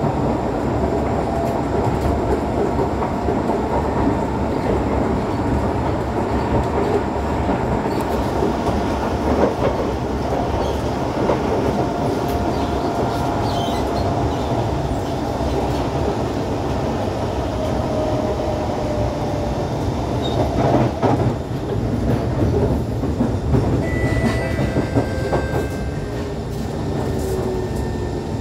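SMRT C151 metro train with GTO chopper traction, heard from inside the car: a steady rumble of wheels on rail with a faint motor whine. Near the end the motor's tone glides downward as the train brakes into the station.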